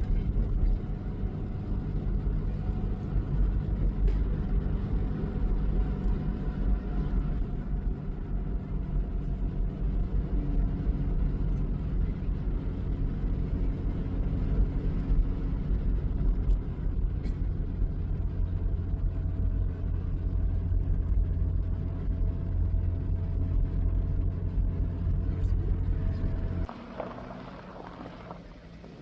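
A vehicle's engine running with a steady low rumble, which drops away abruptly about 27 seconds in, leaving a quieter background.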